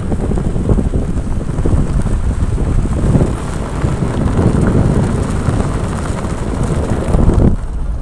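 Road and wind noise of a moving car: a loud, uneven rushing rumble, heaviest in the low end, with wind on the microphone.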